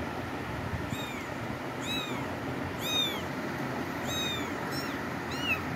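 Young kitten meowing about six times, roughly once a second: thin, high-pitched calls that each rise and then fall in pitch.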